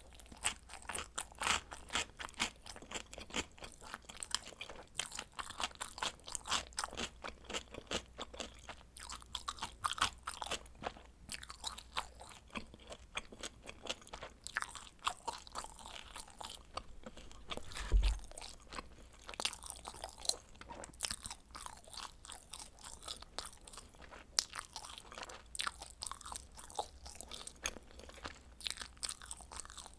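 Close-miked chewing and biting of pizza: a dense run of crisp crunching clicks, with one low thump about eighteen seconds in.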